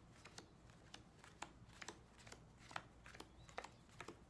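Playing cards being dealt one at a time onto a felt-covered table: faint, short clicks and slaps, about two or three a second.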